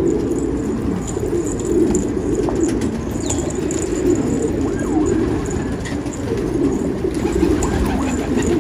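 A flock of domestic pigeons cooing continuously, many low coos overlapping without a break.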